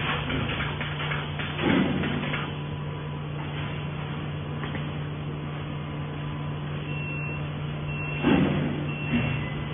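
MFDC wire mesh welding machine running with a steady low hum, broken twice by a loud, short mechanical stroke of the welding station, each a brief burst of noise. The first comes about one and a half seconds in and the second about eight seconds in.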